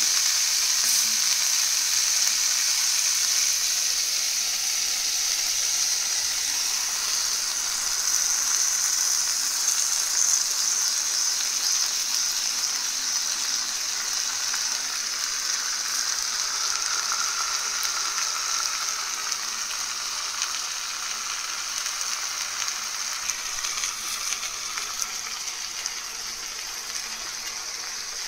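Eggs frying in oil in a nonstick wok among sautéed greens and onion: a steady, high sizzle that slowly grows quieter.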